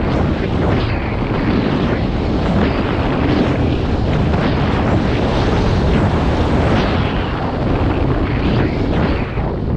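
Loud, steady rush of wind buffeting an action camera's microphone during a downhill ski run through deep powder, with the hiss of the skis through the snow mixed in.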